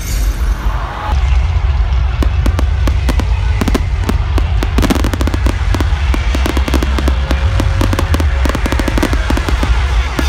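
Fireworks going off overhead: a rapid, dense string of bangs and crackles starting about two seconds in, over a steady low rumble.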